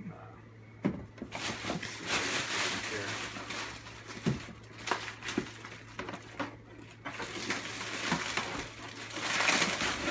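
Plastic wrapping and packing material crinkling and rustling as parts are pulled out of a cardboard kit box, with scattered sharp clicks and knocks and a short lull a little past the middle.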